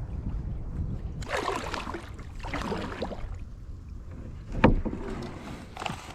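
Kayak on the water with two swishing paddle strokes about a second apart, then a sharp knock a little after halfway and a smaller one near the end. Wind rumbles on the microphone at the start.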